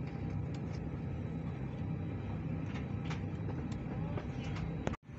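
Steady low hum in the cabin of an Airbus A319 parked at the gate, with a few faint clicks. The sound drops out abruptly near the end.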